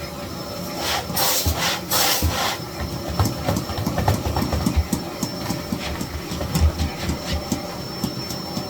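Miele Blizzard CX1 bagless cylinder vacuum running with a steady high whine, with repeated clicks and knocks as it is worked over the floor. There are two loud rushing bursts about one and two seconds in.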